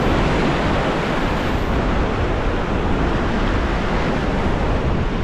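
Steady rush of ocean surf, with wind on the microphone.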